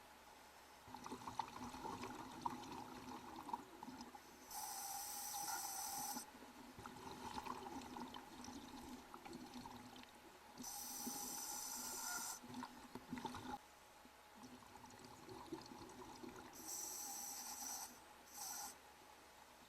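A scuba diver breathing through a regulator underwater. Three times, about six seconds apart, a high hiss lasting a second or so marks an inhale, and the exhaled air bubbles and gurgles in between.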